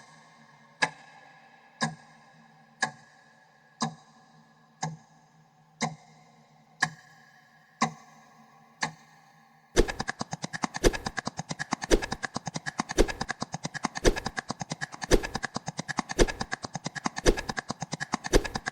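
A short ticking sound effect with a brief ringing tone, one for each number counted, about once a second. Almost ten seconds in it speeds up to about nine ticks a second, with a louder tick about once a second marking each new ten.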